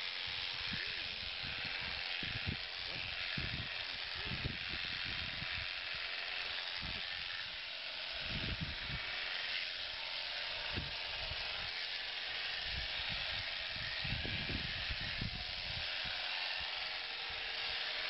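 Electric sheep-shearing handpiece running as it cuts through the fleece: a steady hiss with a faint motor hum. Irregular low thumps and rumbles sound under it.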